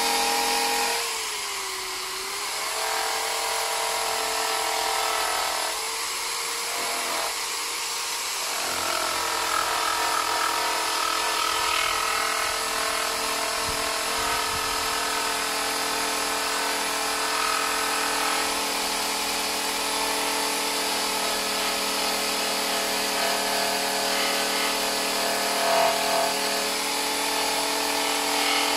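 Electric drill spinning a purple abrasive stripping disc against the wheel-arch sheet metal to take off rust, a steady motor whine. The pitch sags briefly about two seconds in and a couple more times before eight seconds, as the drill slows when the disc is pressed on.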